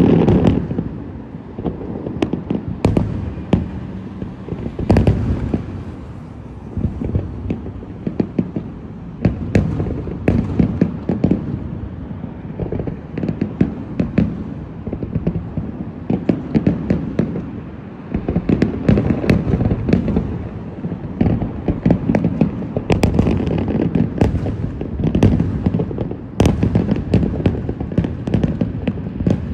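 Fireworks display going off without a break: a dense barrage of sharp bangs and crackles over deep booming shell bursts, several a second, with bigger bursts about five seconds in and again around twenty-three and twenty-six seconds in.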